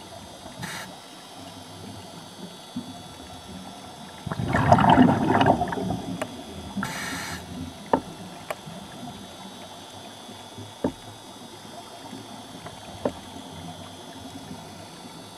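Underwater ambience picked up by the camera: a steady hiss with a faint hum. There is a louder rushing burst about four seconds in, brief hissy swells near the start and about seven seconds in, and a few sharp clicks after that.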